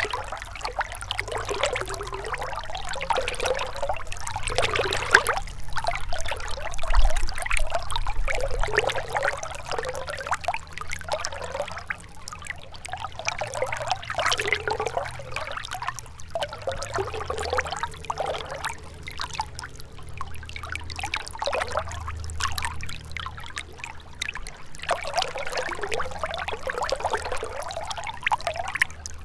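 A gentle river trickling and splashing steadily, with the water sound swelling and easing every few seconds.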